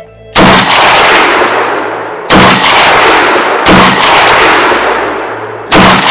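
Four single shots from a Mini Draco AK-pattern pistol in 7.62×39mm, fired at an uneven pace about one and a half to two seconds apart. Each is a sharp crack that trails off in a long echo.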